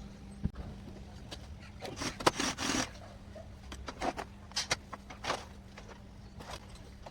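Scattered clicks and short scrapes of hard plastic and metal parts being handled while a laser printer is taken apart, over a steady low hum.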